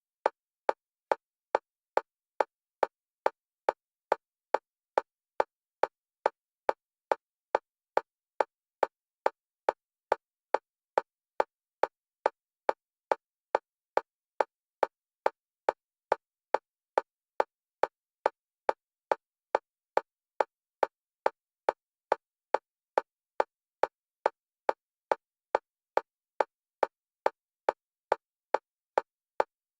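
A single-pitch metronome click repeating evenly, about two a second, alternating between the left and right stereo channels: an EMDR bilateral-stimulation beat.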